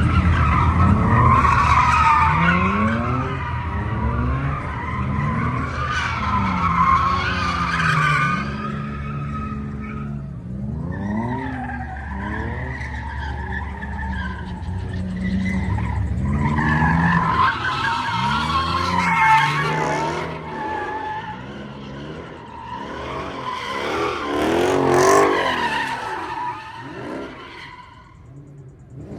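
Car tyres squealing while the engine revs up and down, with long wavering squeals throughout that fade near the end.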